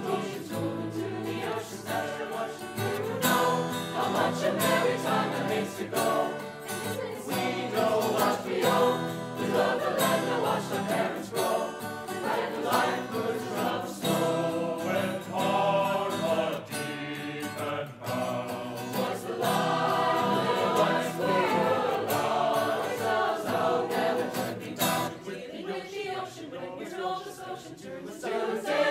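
Mixed high-school choir singing in harmony, accompanied by a strummed acoustic guitar. The sound thins and the low voices drop out about three-quarters of the way through.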